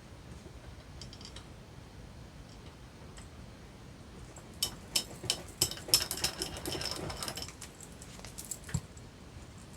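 Paper and small craft tools handled on a desk: a run of sharp clicks and taps starting about halfway in, with paper rustling for a second or two, then another single tap near the end.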